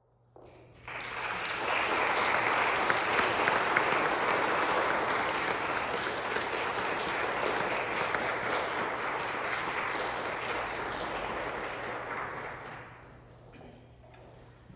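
Audience applauding, starting about a second in and dying away near the end, over a low steady hum.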